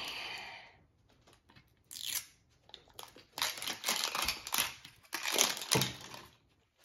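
Wrapping layers of an LOL Surprise toy ball being peeled and torn off by hand: crinkly tearing in several separate pulls, the longest about three to five seconds in and another around five to six seconds.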